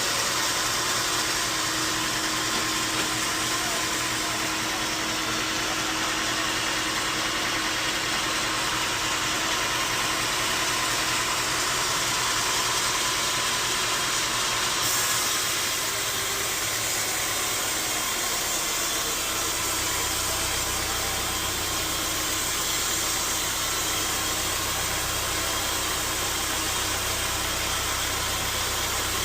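Bandsaw sawmill running steadily: a constant machine noise with a broad hiss, its low hum changing pitch about two-thirds of the way through.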